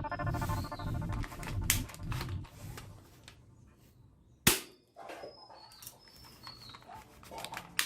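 Toy gun being handled and fired: scattered plastic clicks and one loud, sharp shot about halfway through, with another sharp click near the end.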